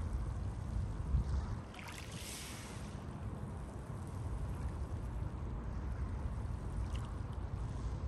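Mediterranean sea waves washing onto Konyaaltı's pebble beach. One wave breaks and rushes up the shore with a hiss about two seconds in, and a smaller one comes near the end, over a steady low rumble.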